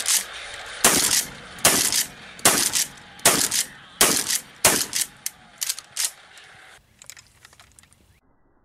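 Remington 870 pump-action shotgun firing a rapid string of shots, about one every 0.8 s, with the slide clacking between them. The shots stop about 7 s in.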